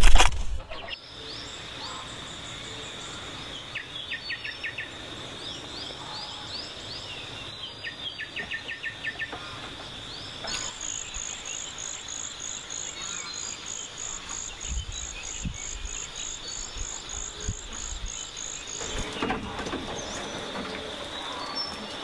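Countryside ambience: a steady high insect drone with birds chirping in short repeated notes. A fast, even pulsing trill sounds higher up for several seconds in the middle. A brief loud thump right at the start.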